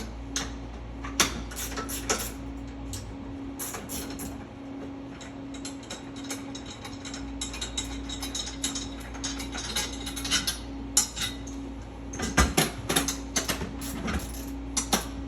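Wrench working the 9/16-inch leg bolts off a pinball machine's front legs: a run of short metallic clicks and clinks that come thickest in a quick cluster near the end.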